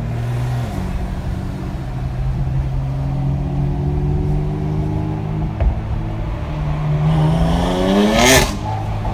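BMW M4's twin-turbo straight-six running steadily, then revved hard near the end, its pitch climbing steeply to a loud sharp crack before settling back. Heard from inside another car.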